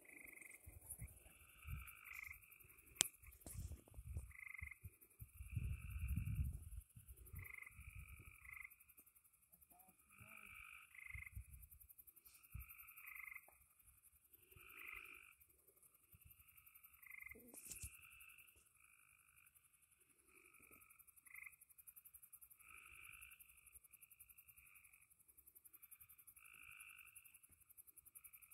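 Frogs calling in a night chorus, short repeated croaking trills overlapping throughout, over a steady high insect hiss. A sharp crack about three seconds in and some dull low thuds in the first several seconds.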